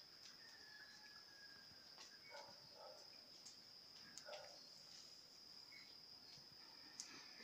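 Faint rural dawn ambience: a steady high-pitched insect drone, with a few faint short calls about two, three and four seconds in.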